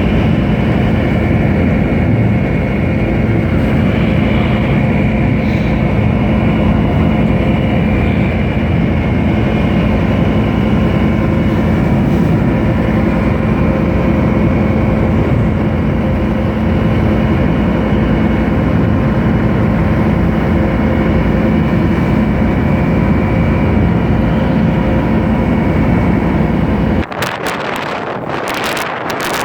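Ship's engine running with a steady low hum and fixed tones above it. Near the end it gives way abruptly to wind buffeting the microphone.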